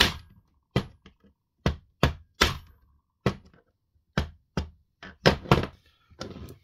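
Around a dozen sharp knocks and clacks at an uneven pace, hard parts of a Spinlock XA rope clutch striking together while its handle is being replaced.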